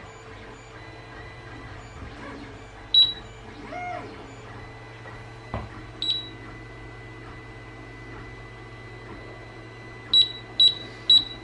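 Raymarine E120 chartplotter's beeper giving short, high beeps as its keys are pressed. There is one beep about three seconds in and another about six seconds in, then three quick beeps near the end, over a low steady hum.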